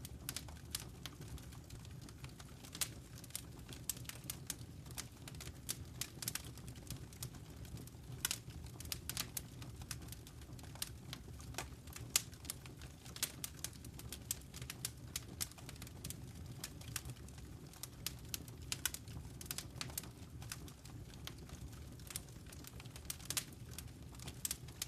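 Wood fire crackling in a fireplace: irregular sharp crackles and pops over a steady low rumble of the flames.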